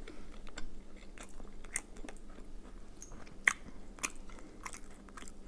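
A person chewing a mouthful of soft French toast close to the microphone, with irregular wet mouth clicks; the sharpest click comes about three and a half seconds in.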